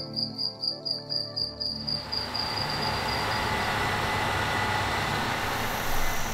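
Crickets chirping in a steady pulsing trill over soft music notes; about two seconds in, the steady running noise of a Case IH combine harvester takes over.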